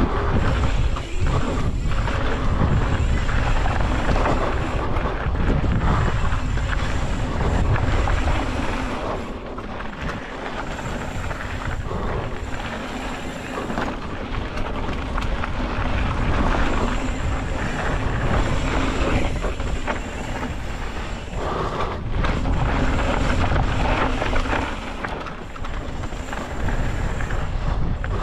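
Wind buffeting the microphone while a mountain bike rolls fast over dry dirt singletrack. Tyre noise runs underneath, with occasional knocks and rattles from the bike over rough ground.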